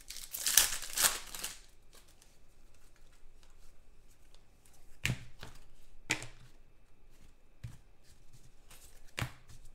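A 2019 Donruss football card pack's foil wrapper torn open and rustling for about the first second and a half, the loudest part. Then the cards are slid and flicked through the hands one at a time, with a few sharp snaps about five, six and nine seconds in.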